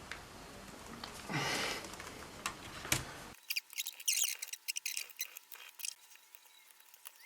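Scraping, rustling and small clicks of hands working at an opened laptop's plastic parts and ribbon cable, with a scrape a second and a half in and a sharp click near three seconds. A little after three seconds the low background drops away, leaving only faint scattered ticks and scratches.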